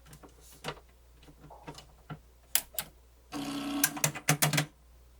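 Pioneer CT-W802R double cassette deck's mechanism clicking over and over as its solenoid moves up and down, with a short motor buzz a little past the middle. The deck is trying to switch modes but the mechanism won't change over, which the owner puts down mainly to its missing belts.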